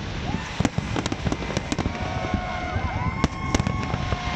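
Fireworks display: frequent sharp bangs and crackling from bursting shells over a constant low rumble. From about two seconds in, several held whistling tones sound above it.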